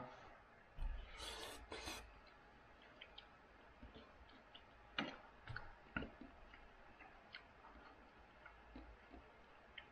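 Faint sounds of eating soup with a spoon: a soft slurping or rubbing noise about a second in, then a few light clicks of the spoon against the bowl around the middle.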